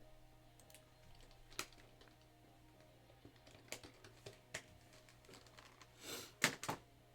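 Faint scattered clicks and taps of trading cards being handled and set down, with a louder run of clicks near the end, over faint background music.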